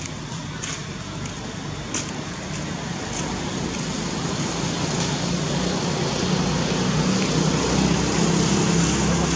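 Distant road traffic: a low engine hum over steady road noise, growing gradually louder, with one faint click about two seconds in.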